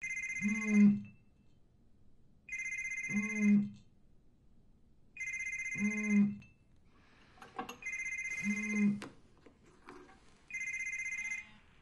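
A telephone ringing: an electronic ring sounds five times, each about a second long, about every two and a half seconds.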